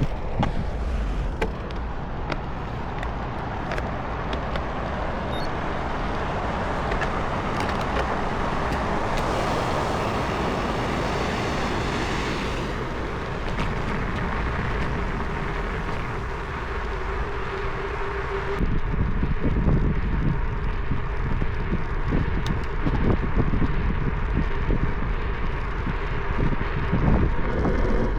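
Wind rumbling on the microphone over steady road and traffic noise during a bicycle ride.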